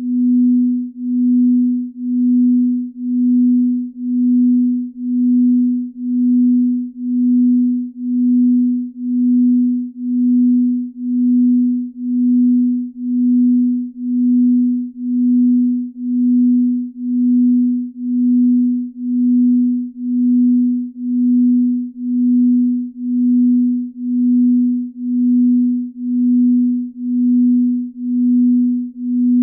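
Sleep binaural beat: a steady, pure, low tone that swells and fades evenly about once a second.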